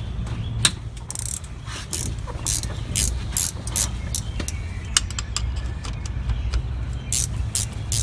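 Ratcheting wrench clicking in short, uneven runs as a 14 mm axle-to-differential flange bolt is backed off, over a low steady hum.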